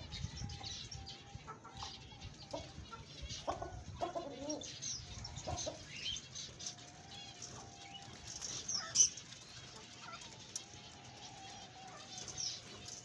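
Rooster and hen moving about with scattered low clucks, over many small caged birds chirping high and short throughout. A sharp, loud sound about nine seconds in, and the rooster flapping its wings near the end.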